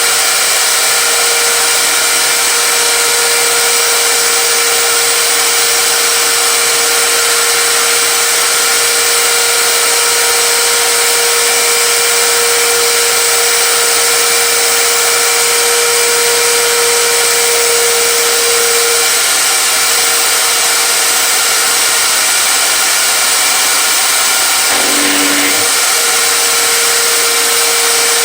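An electric power tool motor runs steadily at constant speed. A short change in the sound comes near the end.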